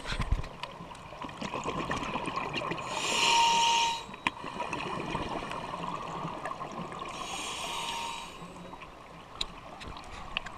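Scuba regulator breathing heard underwater: two exhalations about four seconds apart, each a second-long rush of bubbles, over a steady water hiss with scattered faint clicks.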